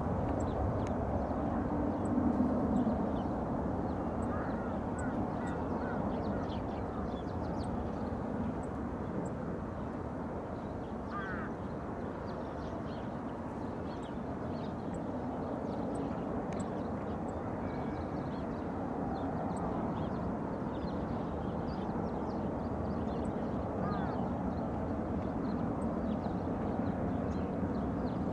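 Boeing 777-200 jet engines at takeoff power heard from a distance: a steady low rumble as the airliner rolls down the runway, lifts off and climbs away. Faint bird calls sound over it.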